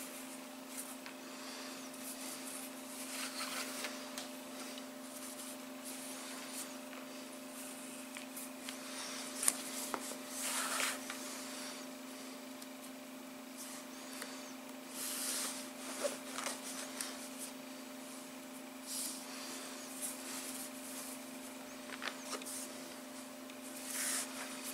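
Cotton cord rustling and rubbing in short, scattered bursts as net knots are tied and pulled tight around a plastic mesh gauge, over a steady low electrical hum.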